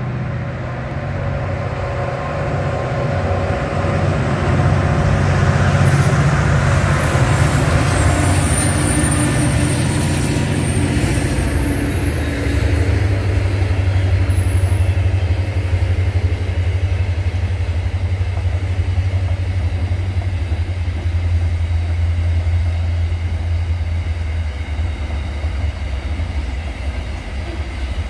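Freight train passing close by: the diesel locomotive's engine and wheels build to their loudest about six to eight seconds in, with high-pitched squealing for a few seconds after. A steady low rumble of wagons rolling over the rails follows.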